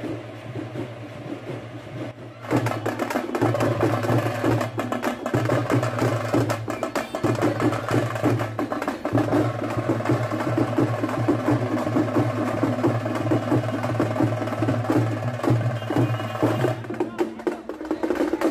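Street procession drums beaten fast and hard in a dense, sharp rhythm, starting suddenly about two and a half seconds in over a steady low hum.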